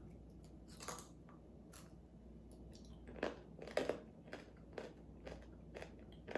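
Someone chewing a crisp, crunchy snack close to the microphone: two separate crunches in the first two seconds, then steady crunching about two times a second, loudest near the middle.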